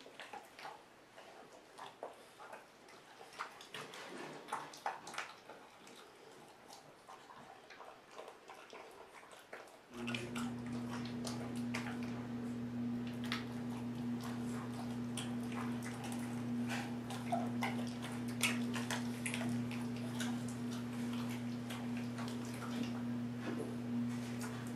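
Ten-week-old bullmastiff puppy gnawing a frozen chicken wing, with scattered crunches and clicks of teeth on bone. About ten seconds in, a steady low hum starts up and continues under the chewing.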